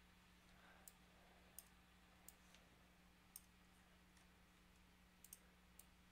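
Faint computer mouse button clicks: scattered single clicks and a quick double click about five seconds in, over a low steady hum.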